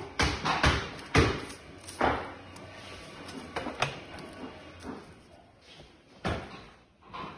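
Hollow knocks and taps from cardboard firework tubes being handled and set down on a wooden workbench. There is a quick run of sharp taps, about three a second at first, then single knocks spaced further apart.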